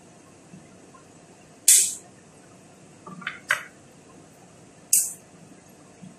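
Spice shaker jar shaken over a cooking pot in three short, sharp bursts, the middle one doubled.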